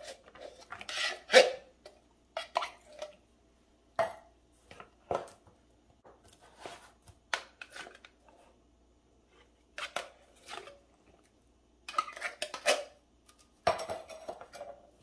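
Tin cans of green beans knocking and scraping against the rim of a mixing bowl as they are emptied, with a spatula scraping inside a can: a scatter of short clanks and scrapes, the loudest about one and a half seconds in.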